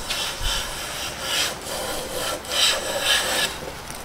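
Siegley No. 5 jack plane taking shavings along the edge of a board: a run of short hissing strokes, about two a second, that stops about three and a half seconds in.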